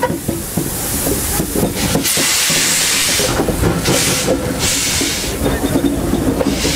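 Steam hissing loudly from the open cylinder drain cocks of class 52 steam locomotive 52 8134-0 as it moves off slowly. The hiss swells and drops away several times, over a low rumble from the engine.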